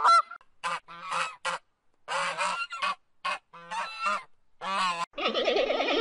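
Greylag geese honking: about ten short, nasal honks in irregular succession. Near the end a denser, unbroken stretch of calling takes over.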